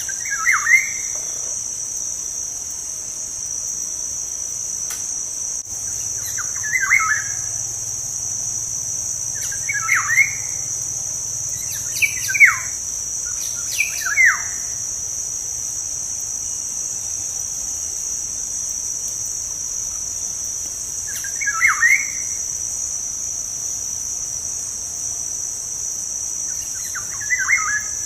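Black-naped oriole calling: short clusters of quick falling notes, about seven of them a few seconds apart, over a steady high chirring of crickets.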